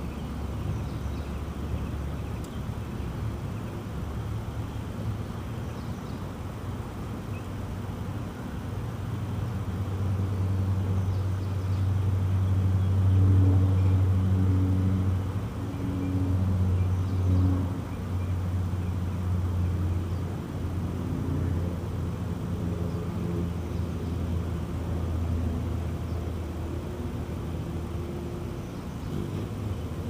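Outdoor air-conditioner condensing unit running, compressor and condenser fan giving a steady low hum, while it is charged with refrigerant. The hum swells louder for several seconds in the middle.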